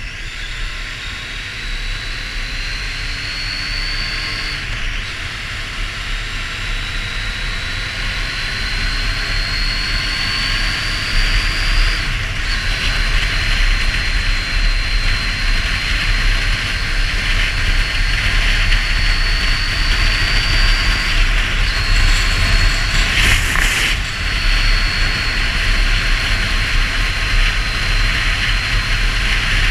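Triumph Street Triple R's three-cylinder engine pulling under way, with a high whine that climbs slowly and breaks off and drops back about five, twelve and twenty-one seconds in, as at upshifts. Heavy wind noise on the microphone grows louder as speed builds.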